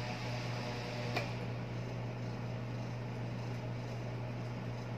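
Electric fan motor running in the hand with its blade spinning fast: a steady electrical hum with the whoosh of the blade. The stuck shaft runs freely now that its bearing has been oiled. A single sharp click sounds about a second in.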